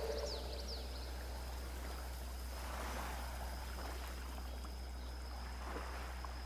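Faint sea waves washing, swelling slightly midway, with a few short high bird chirps near the start.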